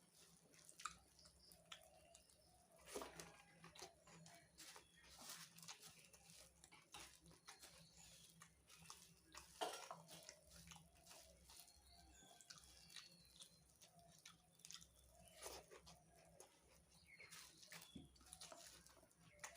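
Close-up chewing and crunching of ghugni muri, puffed rice with spiced pea curry, in a steady run of irregular small crunches and mouth clicks, a few louder bites standing out.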